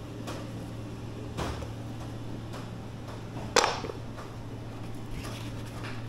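Salmon-prep work at a kitchen counter: a few short knocks and clicks of tools and containers, the loudest a sharp knock just past halfway, over a steady low hum.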